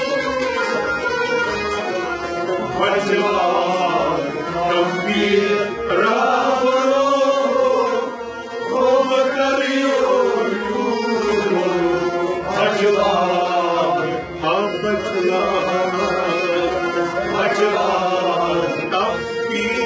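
Kashmiri Sufi devotional song (kalam): a sung, chant-like melody with long bending phrases over a steady sustained instrumental drone, typical of harmonium accompaniment.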